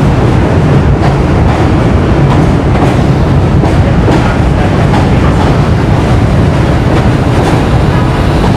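BMT D-Type Triplex vintage articulated subway train rolling into the station along the platform: a loud, steady rumble of steel wheels on rail with repeated clacks.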